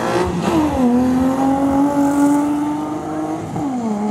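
Car engine at full throttle on a drag-race run, its pitch climbing steadily, with a sharp drop at an upshift about half a second in and another near the end.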